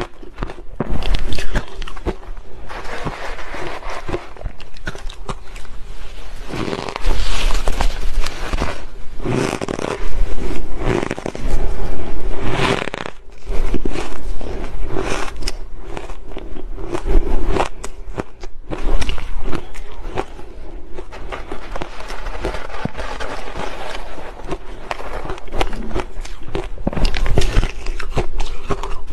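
Close-miked biting and crunching of shaved ice dusted with matcha powder, in repeated loud bouts as mouthfuls are chewed, with a metal spoon scraping into the ice mound.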